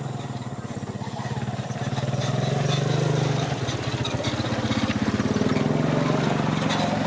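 A small engine running steadily with a rapid low pulse, growing louder about halfway through and again near the end.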